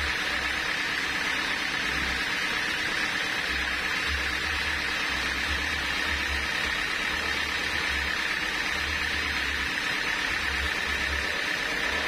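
Homemade band sawmill running steadily without cutting, an even hiss with a steady high hum, while a low rumble comes and goes beneath it.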